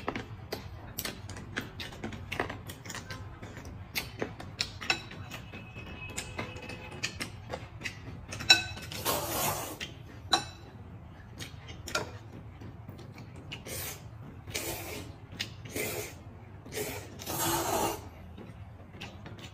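Two people eating noodle soup: chopsticks clicking against porcelain bowls, with chewing, and several noisy slurps of noodles in the second half, the longest near the end.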